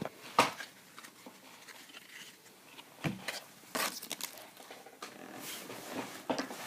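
Trading card packs and cards being handled: scattered rustles and crinkles of pack wrappers and cards, with a few sharp taps or clicks, the loudest about half a second in.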